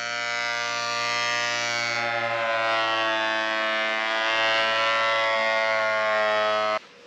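Planer-thicknesser running as an iroko hardwood plank feeds through: a loud, steady whine with many overtones. It cuts off suddenly near the end.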